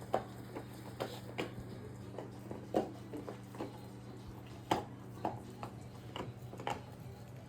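Rottweiler gnawing on a Kong and a Nylabone: irregular clicks and knocks of teeth on hard rubber and nylon, with a steady low hum underneath.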